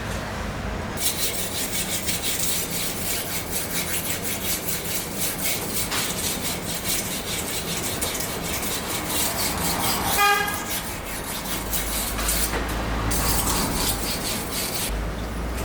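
Street traffic with one short car horn toot about ten seconds in, over a rapid, even rasping sound that starts about a second in and stops near the end. A low vehicle rumble swells in the last few seconds.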